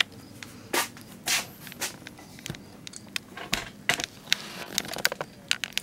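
Irregular light clicks, taps and short rustles with no steady rhythm: handling noise from the camera being moved in close.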